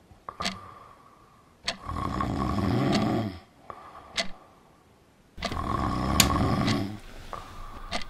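A person snoring loudly: two long, rasping snores a few seconds apart, each lasting about a second and a half to two seconds.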